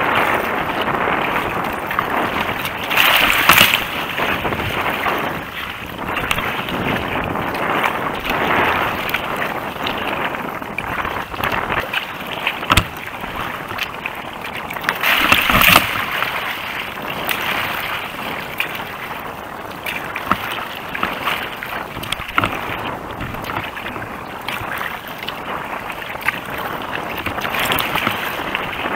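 Strong wind buffeting the camera microphone over choppy water slapping and splashing against a kayak's hull, a rough ride into a headwind against an outgoing tide. The noise is steady throughout, with two louder bursts about 3 and 15 seconds in.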